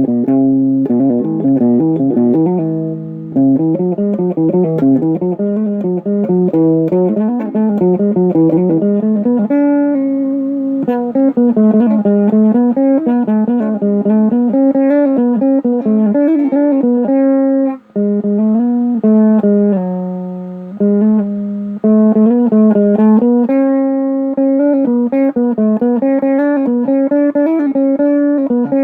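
Guitar music: a plucked guitar melody of quick changing notes over a low bass line, with a brief break about two thirds of the way through.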